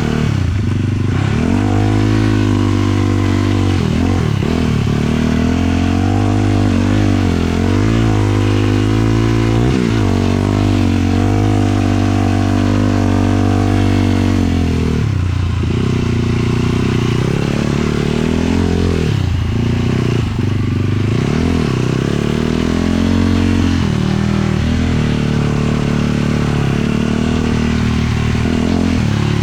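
450-class single-cylinder four-stroke sport quad engine being ridden under varying throttle. Its pitch rises and falls as the rider revs, with a few sharp drops and pick-ups after the middle.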